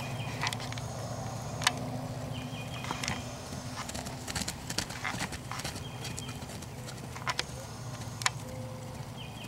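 Hoofbeats of a young colt trotting and cantering loose on grass: irregular knocks and thuds. A short, high ticking trill repeats every few seconds behind them.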